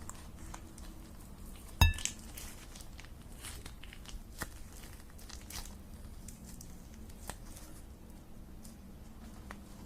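Close-up handling noises: scattered small crinkling clicks and crackles over a faint low hum, with one sharp knock about two seconds in.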